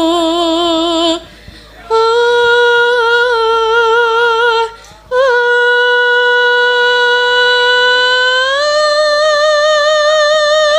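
A Javanese sinden (female vocalist) singing long held notes with vibrato into a microphone, a single voice in three phrases separated by short breaths. The last note steps up in pitch toward the end.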